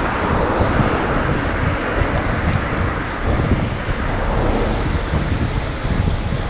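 Wind buffeting a GoPro Hero 5's microphone: an uneven, gusty rumble over a steady wash of outdoor noise.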